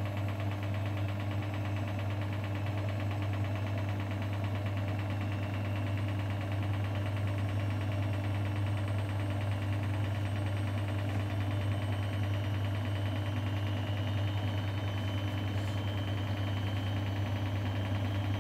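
Front-loading washing machine running mid-programme: a steady low hum with a faint, fast whirr over it.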